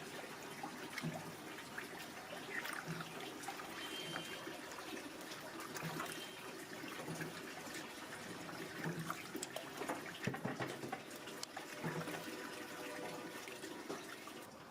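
Water running and splashing, with scattered light knocks.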